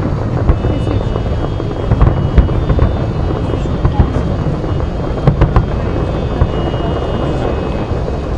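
Large fireworks display: a continuous low rumble of aerial shells going off, with many sharp bangs and cracks.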